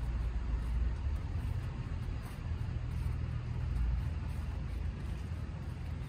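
Engine of a snow-clearing front loader running, a steady low rumble that eases about five seconds in.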